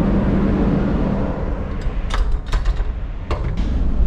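Steady noise and hum of a cargo ship's engine-room supply fans, fading about a second in as a door is pushed through. A quick series of sharp clicks and knocks from the door's lever handle and latch follows.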